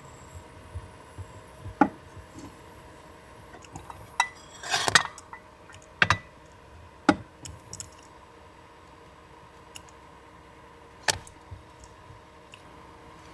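Dishes and cutlery being handled: a handful of separate sharp clinks and knocks, with a short cluster of them about five seconds in, over a steady faint hum.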